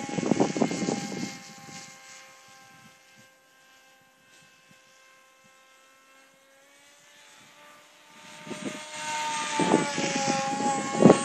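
Electric motor and propeller of a radio-controlled model airplane in flight: a steady whine that falls slightly in pitch at the start and fades as the plane flies off. It is barely audible in the middle, then grows loud again from about eight seconds as the plane comes back close.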